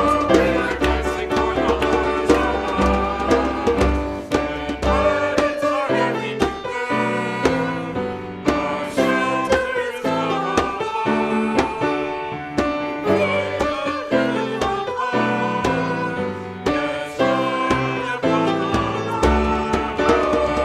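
Music: instruments playing a rhythmic piece with regularly changing chords, part of the church service's music.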